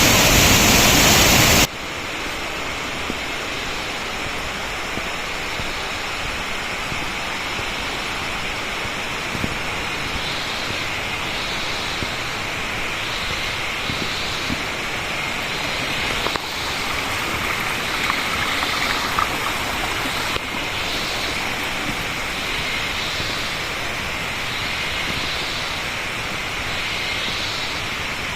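Mahua Waterfall's falling water: a steady rushing hiss. It is louder for the first couple of seconds, then drops suddenly to a lower, even level. In the second half a higher hiss swells and fades about every second and a half.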